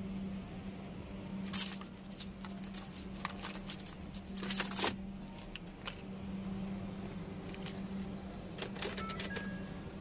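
Keys jangling and clinking in several short bursts, the longest about four and a half seconds in, over a steady low hum.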